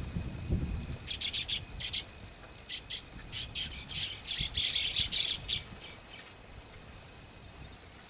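Baya weaver calling: a rapid run of harsh chirps starting about a second in, thickening into dense chatter around four to five seconds, then stopping.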